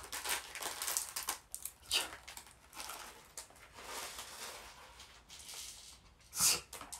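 Crinkling and tearing of the plastic wrapping on a bag of small kit parts as it is unwrapped, with rustling and light clicks of the plastic pieces being handled. Two sharper rustles stand out, about two seconds in and near the end.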